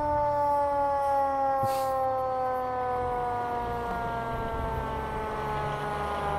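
Fire engine siren sounding one long tone that slides slowly down in pitch, over the low rumble of the engine's motor.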